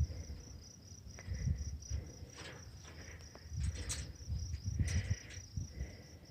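Insects, likely crickets, calling in a steady high-pitched pulsing trill, with irregular low rumbles and a few short rustling noises mixed in.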